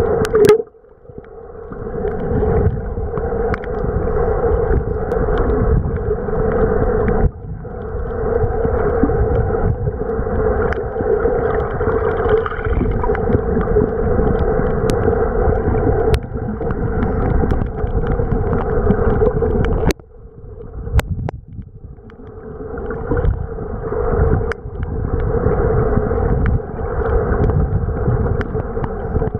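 Muffled underwater sound through a camera's waterproof housing: a steady rush of water movement with a constant hum running through it. It drops away briefly just after the start and fades into a lull about two-thirds of the way through.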